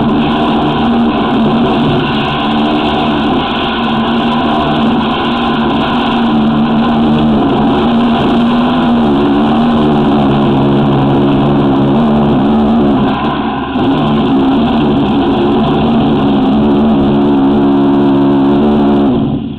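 High-pressure drain jetter running at full pressure, driving a water-powered hydraulic root cutter through the sewer pipe to cut out tree roots. It is a loud, steady engine-and-pump sound that cuts off suddenly near the end.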